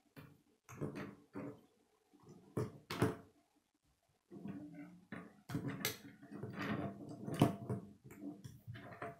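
K'nex plastic rods and connectors being handled and snapped together by hand: irregular clicks and rattling plastic scraping, with a short pause near the middle.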